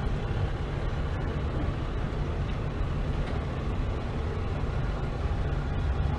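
Ram 3500 dually pickup's 6.7-litre Cummins diesel running at low speed as the truck reverses slowly; a steady low rumble.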